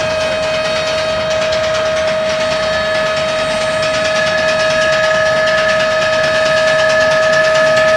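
Harsh noise music: a dense wall of noise under a steady held tone and its higher overtones, slowly getting louder, with a further high tone joining about three seconds in.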